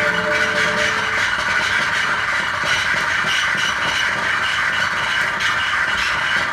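Experimental noise from an electric guitar played through effects pedals: a dense, steady wall of scraping, rattling noise. Two held tones stop about a second in.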